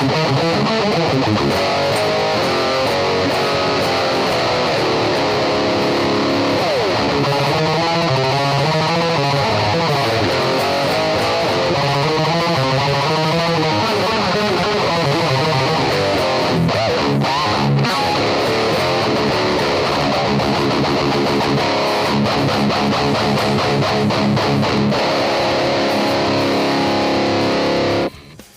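ESP LTD M1000H-T electric guitar played through a 5150 amp head with heavy distortion, riffing with a couple of sliding notes. It stops abruptly just before the end.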